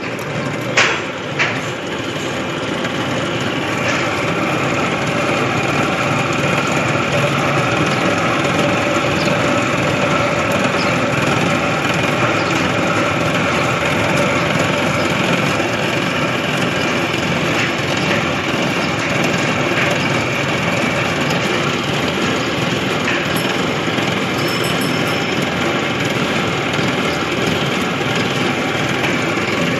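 Cotton candy machine's motor and spinning head running with a steady hum. Two short sharp clicks sound about a second in.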